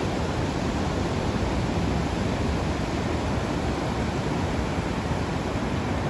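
Ocean surf washing onto a beach: a steady, even rush of noise.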